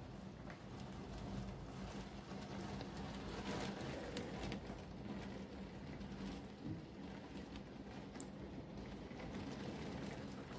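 Heavy thunderstorm rain falling steadily, heard from indoors through a rain-spattered window, with a light patter of drops.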